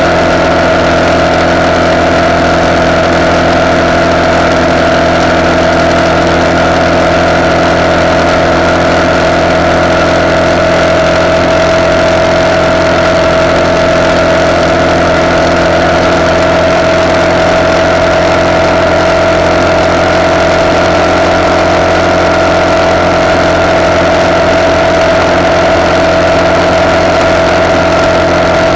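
RPS Hawk 250 single-cylinder four-stroke motorcycle engine running through a de-catted CRF230 exhaust, cruising at a steady speed with an unchanging pitch, heard close up from a handlebar-mounted camera along with wind noise.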